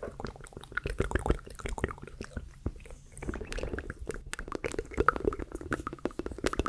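Close-miked wet mouth sounds for ASMR: a rapid run of small clicks and smacks, joined by a soft, breathy murmur about halfway through.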